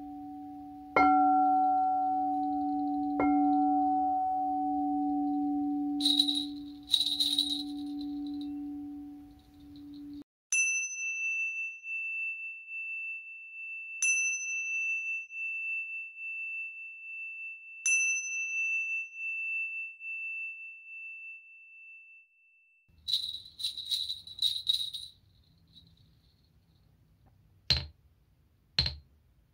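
A frosted crystal singing bowl is struck with a mallet and rings with a low, pulsing tone, struck twice more before it stops abruptly about ten seconds in. Tingsha cymbals are then struck three times, and each strike leaves a long, high, steady ring. A quick flurry of high rings follows, and a few sharp clicks near the end come from a stone being tapped.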